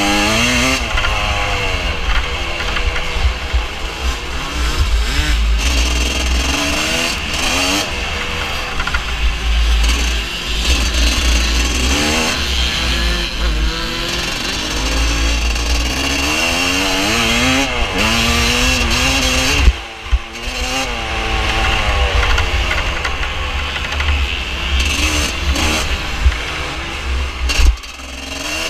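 Vintage motocross bike's engine revving up and falling back again and again as the rider works the throttle and gears, heard close from an on-bike camera with wind rumble. Twice, about two-thirds of the way through and near the end, a sharp knock is followed by a moment's drop in the engine.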